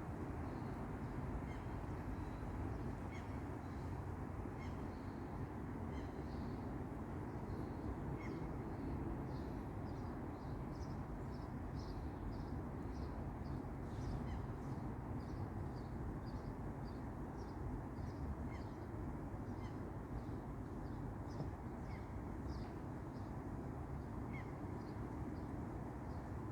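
Small birds chirping in many short, high notes, thickest around the middle, over a steady low background rumble.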